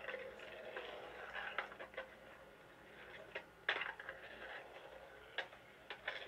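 Skateboard rolling on a concrete bowl with several sharp clacks of the board and trucks, the loudest a little before four seconds in, heard thinly as videotape played back through a television speaker.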